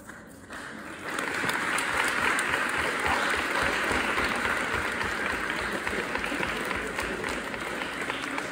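Audience applauding, swelling about a second in and then holding steady.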